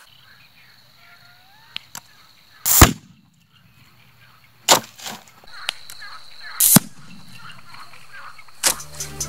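Homemade bottle firecrackers going off: three sharp bangs about two seconds apart, the first the loudest, with a few smaller pops between them.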